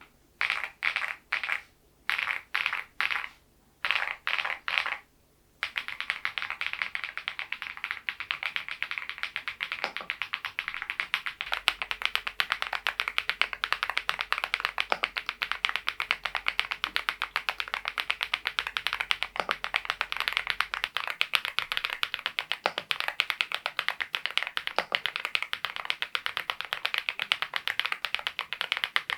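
Mongdol87 mechanical keyboard with thick PBT cherry-profile keycaps being typed on: three short runs of keystrokes, then steady fast typing from about six seconds in.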